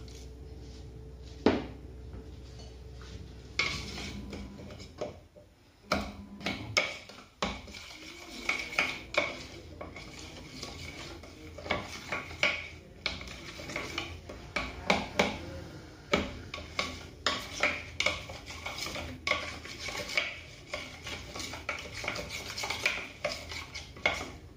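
A spoon stirring a spice marinade in a glass bowl, clinking and scraping against the glass in quick, irregular strokes that begin about four seconds in. Before that, a single sharp clink is the loudest sound.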